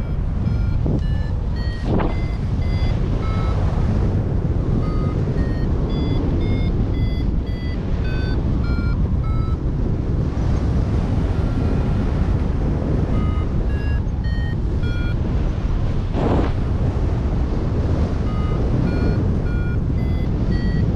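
Paragliding variometer beeping in short tones, about two a second, whose pitch steps up and down with the rate of climb, signalling that the glider is climbing in lift. Loud wind rushes over the microphone throughout, and the beeping thins out for a few seconds about halfway through.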